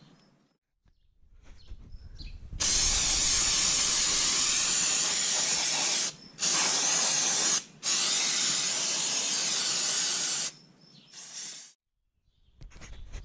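Aerosol can of brake cleaner spraying in three long bursts, starting about two and a half seconds in, then one short fainter burst near the end, washing spilled oil off around the oil filter and drain bolt.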